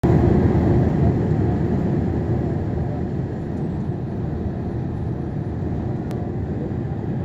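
Steady low rumble of jet engine and airflow noise inside the cabin of a Boeing 787 Dreamliner on approach, easing slightly after the first two seconds. A faint click comes about six seconds in.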